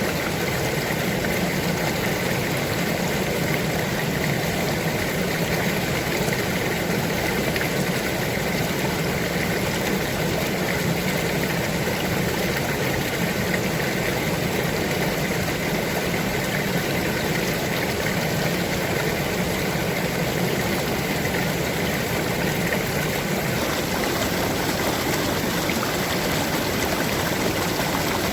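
Steady sound of flowing stream water, running evenly without any break.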